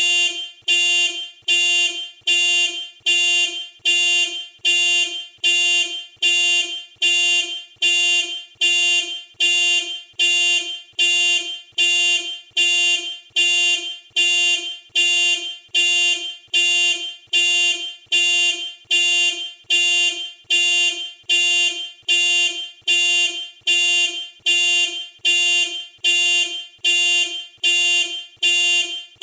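Toyota car horn sounding in a steady pulse, about one honk a second, as the factory keyless entry alarm goes off.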